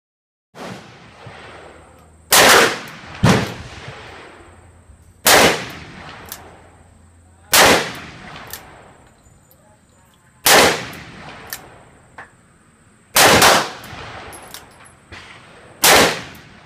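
Seven shots from a stainless Smith & Wesson revolver fired double-handed, spaced irregularly one to three seconds apart. Each shot is loud and followed by a ringing echo under the range roof. A few fainter pops from elsewhere fall between the shots.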